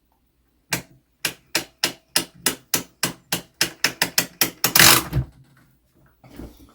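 Clock mainspring winder's ratchet clicking as its crank winds a mantel clock's mainspring: about fifteen sharp clicks that quicken from about three to five a second. A louder rattling burst follows about five seconds in.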